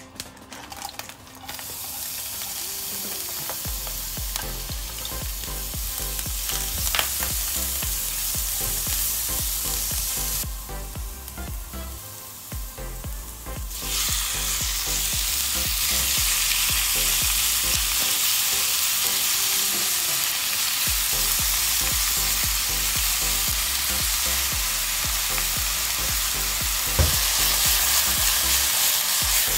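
Minced garlic, ginger and dried chillies sizzling in hot oil in a nonstick wok as they are stirred. The sizzle gets louder about halfway through, once raw chicken chunks go into the wok and are stir-fried, with a couple of sharp clicks of the stirring.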